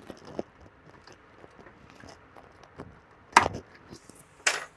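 Small handling noises as tweezers and wires are worked against a radio's plastic chassis: faint scattered clicks and rustles, with two louder short scrapes about a second apart near the end.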